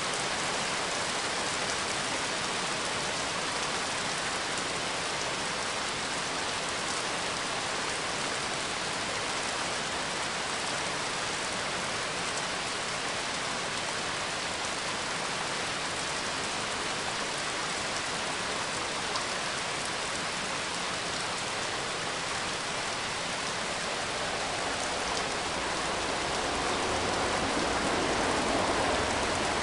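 Steady rain falling, an even hiss with scattered drops, growing a little louder near the end.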